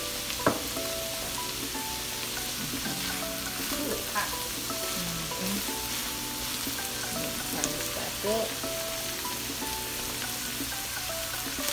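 Peas, carrots and onions sizzling in a hot wok, stirred and pushed around with a silicone spatula. A sharp knock about half a second in is the loudest moment.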